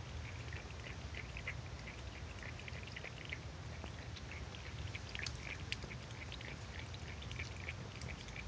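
Cat lapping water from a bowl: a quick, continuous run of small wet clicks and splashes from its tongue.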